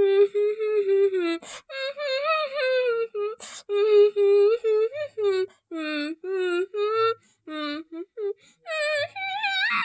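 A solo voice singing a tune without words, on nonsense syllables like "blah": a string of short held notes that slide up and down, broken by brief gaps.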